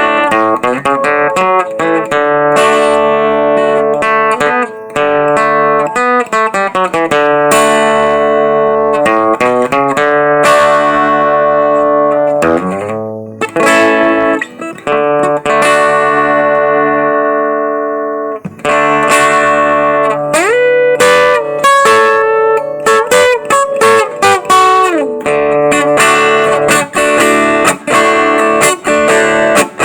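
Acoustic guitar (violão) played solo: a picked melody of single notes over chords, with a few notes slid up and down in pitch past the middle.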